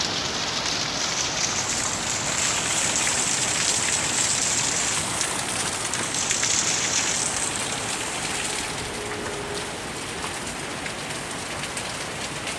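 Rain from the onset of a hurricane falling steadily as an even hiss, easing slightly after about eight seconds.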